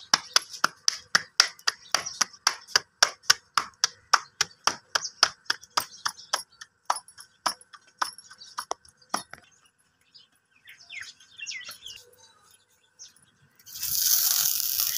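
Dough for a methi paratha slapped and flattened between the palms, a rhythmic slapping at about four slaps a second that stops after about nine seconds. Near the end, water wiped onto a hot iron tawa sets off a loud steady sizzle.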